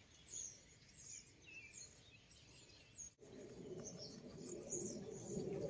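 Faint small birds chirping, short high calls scattered throughout. From about halfway on, a low rustling builds as dry, dead cucumber vines are grabbed and pulled.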